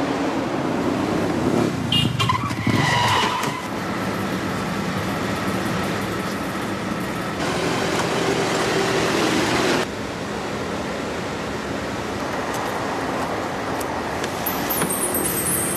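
A city bus and a motorcycle running in road traffic, with a brief high squeal of brakes about two to three seconds in as they slow.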